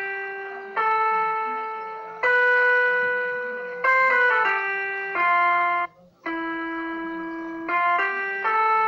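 Instrumental keyboard music with an organ-like tone: held chords that change every second or so, each fading a little, with a brief break about six seconds in.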